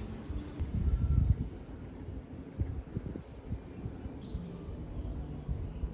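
Insect trilling: one steady, high-pitched tone that starts about half a second in and holds, over irregular low rumbling that is loudest about a second in.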